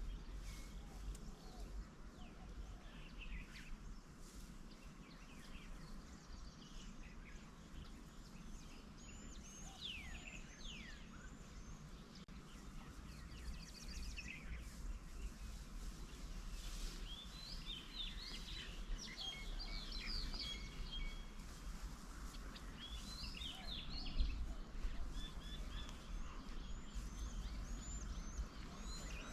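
Several small birds chirping and calling in short, quick rising and falling notes, busiest in the second half, over a steady low background rumble.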